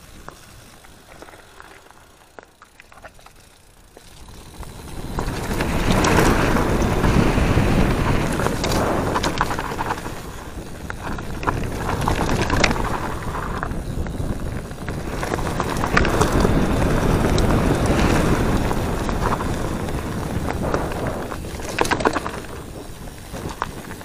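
Mountain bike riding fast down a forest dirt trail: a steady rush of tyre and wind noise with rattles and knocks from the bike over bumps. Fairly quiet for the first few seconds, loud from about five seconds in.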